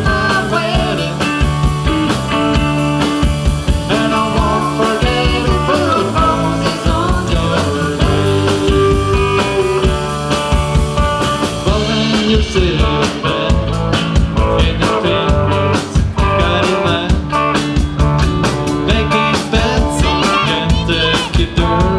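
Live rock band playing through a PA: electric guitars over a steady drum-kit beat.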